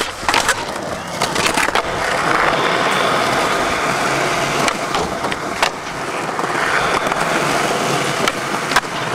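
Skateboard wheels rolling on smooth concrete, with several sharp clacks of the board hitting the ground as the skater pops and lands tricks.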